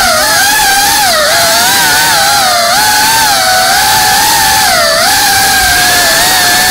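FPV quadcopter's brushless motors whining loudly over a rushing hiss, the pitch rising and dipping constantly with the throttle as it flies fast.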